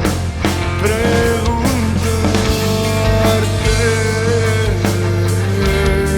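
Rock band music: electric guitars with a sliding, bending lead line over steady bass and drums.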